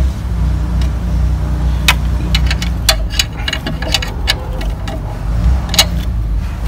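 Irregular sharp metallic clicks and taps of a socket wrench and extension bar working on engine parts, over a steady low rumble.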